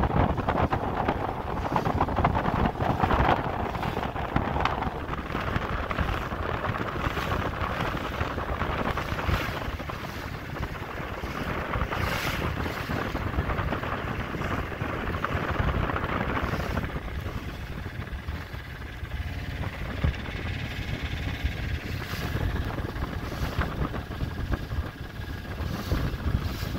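Wind buffeting the microphone on the deck of a small sailing yacht motoring at sea, over a low steady rumble of the boat's engine and water rushing past the hull. The wind noise eases a little past the halfway point, leaving the engine's faint steady hum plainer.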